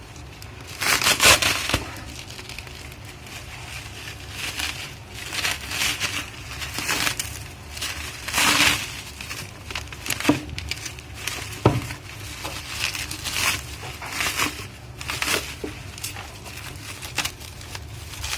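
Plastic bubble wrap being pulled off and unwrapped by hand, in irregular bursts of crinkling and rustling, with a couple of sharp clicks about ten and twelve seconds in.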